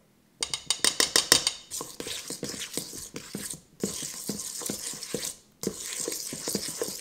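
A metal fork stirring and scraping powdered sugar into softened butter in a stainless steel mixing bowl, clinking against the bowl about five times a second. It starts about half a second in and pauses briefly twice.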